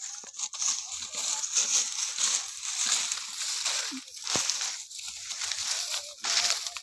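Footsteps and a donkey's hooves crunching through a thick layer of dry sugarcane leaves. The dry leaves give a continuous crackling rustle that swells with each step.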